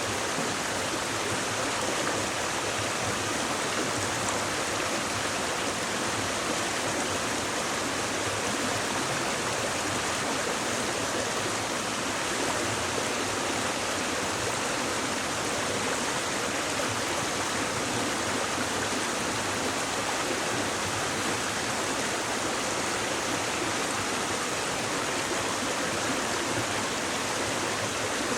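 A shallow stream babbling over rocks, a steady rush of running water with no pauses.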